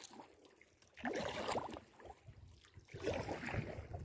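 Kayak paddle water splashing and trickling, in two short spells: about a second in and again near the end.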